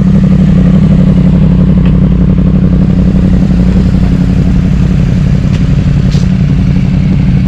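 BMW GS Adventure motorcycle being ridden at a steady speed: a steady engine drone mixed with rushing wind, heard from the rider's position and holding one pitch without revving.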